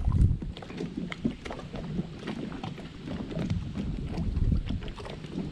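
Wind buffeting the microphone and choppy water lapping against the boat hull, an uneven low rumble with scattered light clicks.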